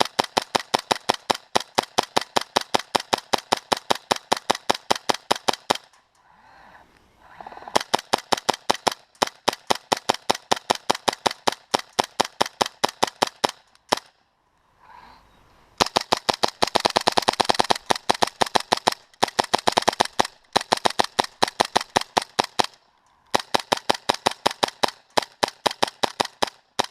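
KSC/KWA P226 gas blowback airsoft pistol, converted to run on HPA air, fired in rapid strings of sharp shots with its slide cycling, about four a second and faster near the middle, with short pauses between strings.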